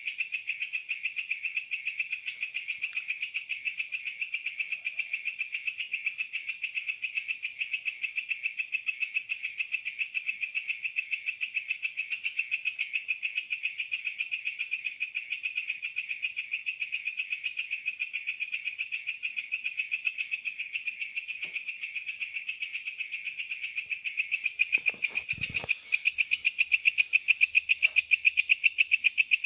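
Night insects, crickets by their sound, chirring steadily in high, even pulses of about five a second. The chorus grows louder near the end, just after a brief low thump.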